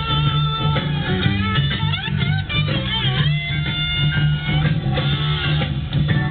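Guitar-driven music with bass, held notes and string bends.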